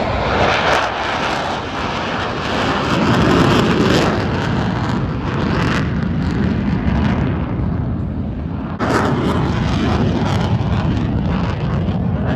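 Loud jet roar from USAF Thunderbirds F-16 Fighting Falcons with engines running. The sound changes abruptly about nine seconds in.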